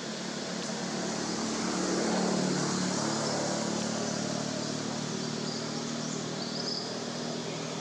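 A motor vehicle's engine droning, swelling to its loudest about two seconds in and then holding steady, over a hiss of outdoor background noise.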